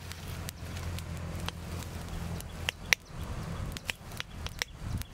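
Dry grass and twigs crackling and snapping as a small fire catches and is fed with sticks, a handful of sharp separate pops over a low steady rumble.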